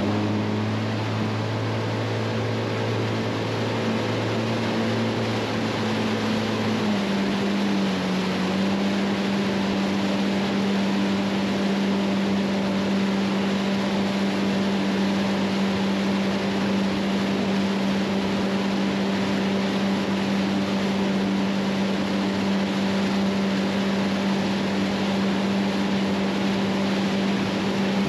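Motorboat engine running at speed, a steady engine tone over the rushing, churning water of the wake. The engine note shifts about seven seconds in, then holds steady.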